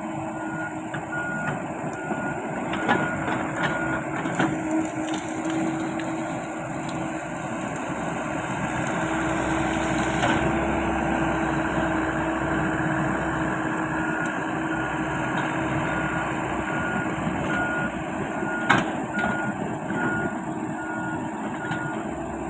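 Komatsu PC78 mini excavator's diesel engine running steadily while the machine travels, its travel alarm beeping about twice a second in two spells, at the start and again over the later part. One sharp knock sounds late on.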